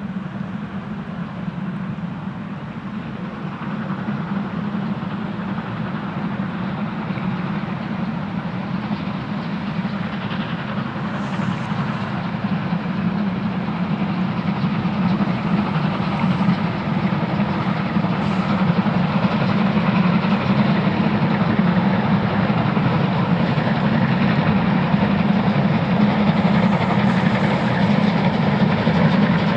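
Steam locomotives hauling passenger trains past, with a dense steady rumble of exhaust and running gear that grows steadily louder as the trains draw near.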